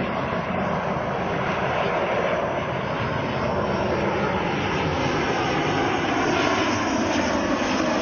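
Boeing 737 jet airliner passing low on approach with its landing gear down: a steady rush and rumble of jet engines, growing slowly louder, with a faint whine that falls in pitch.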